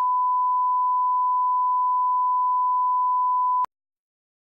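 Steady single-pitch line-up test tone, the reference tone that accompanies colour bars, cutting off suddenly about three and a half seconds in.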